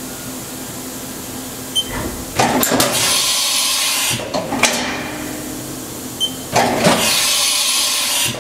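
Haas Super MiniMill's automatic tool changer cycling: a low machine hum, then two long bursts of compressed-air hiss a few seconds apart, each set off by clunks, as the spindle releases and clamps the tool.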